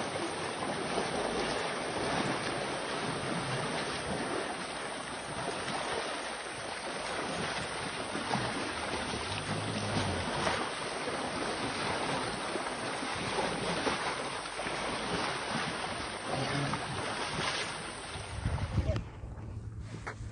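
Rushing, splashing river water as elephants wade through it, with wind buffeting the microphone. The water noise drops away abruptly about nineteen seconds in.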